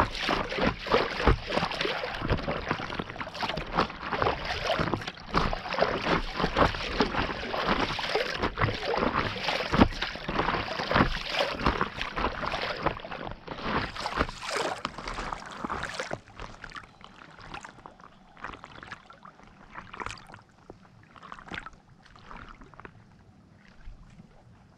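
Water splashing and lapping around a paddleboard on a lake, dense and continuous at first. About two-thirds of the way in it thins out to scattered drips and small splashes.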